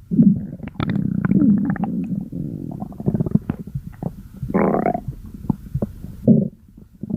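Human stomach growling: a run of low gurgling rumbles broken by short pops and little sliding squeaks, with a louder, higher gurgle about halfway through.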